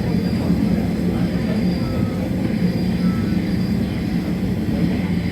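Steady running noise of a light-rail train heard from inside the passenger car between stations: a constant low rumble with a droning hum.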